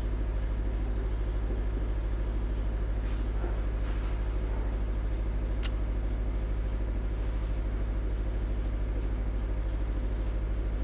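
A steady low electrical hum, with faint scratches of a marker writing on a whiteboard and one short click a little over halfway through.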